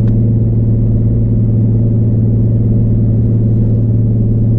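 Nissan 350Z's 3.5-litre V6 droning steadily at highway cruise, heard from inside the cabin as one low, unchanging hum.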